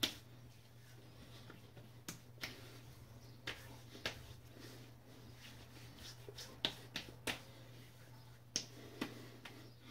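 Hands patting aftershave onto a freshly shaved face and neck: about a dozen light, sharp slaps of palm on wet skin at uneven intervals, over a faint steady hum.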